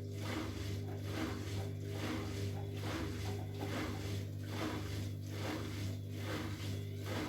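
Bosch Maxx WFL 248Y washing machine's drum turning slowly under a steady motor hum, with the load swishing round in an even rhythm a little more than once a second, as the machine works to balance an uneven load before spinning.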